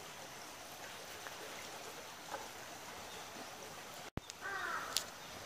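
Steady hiss of outdoor background noise. About four seconds in there is a brief dropout and click, then a short pitched call of about half a second, and a sharp click just after it.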